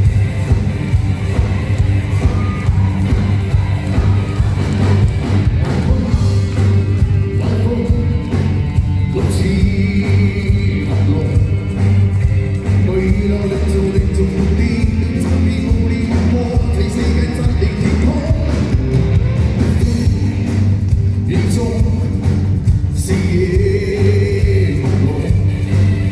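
Live amplified rock band and singer performing a song, with a heavy, steady bass under the sung melody.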